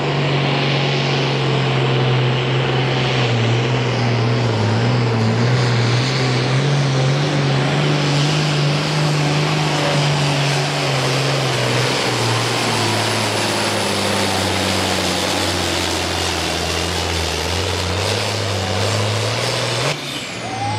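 Hot farm class pulling tractor's engine at full throttle, dragging a weight-transfer sled. The engine note holds steady, then sags lower through the second half as the load on the sled builds.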